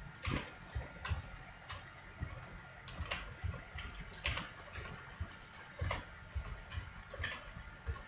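Computer keyboard and mouse clicks: about a dozen short, irregularly spaced clicks as Ctrl+R is pressed again and again and each loop cut is placed with the mouse.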